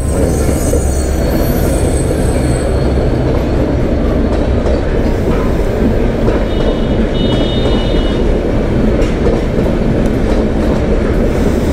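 Train passing close by, a loud steady rumble of wheels on the rails. Thin high-pitched squealing tones come near the start and again about seven seconds in.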